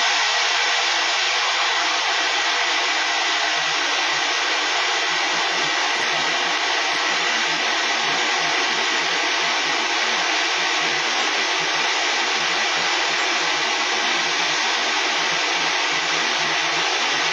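Stat-X 1500E condensed aerosol fire suppression generator discharging: a loud, steady rushing hiss as the aerosol jets out of the unit.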